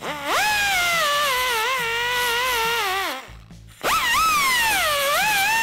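Right-angle air die grinder with a small abrasive disc whining as it cleans a battery cable's ring terminal. The pitch climbs as it spins up and sags when the disc is pressed onto the terminal. It stops briefly a little past three seconds, then spins up again.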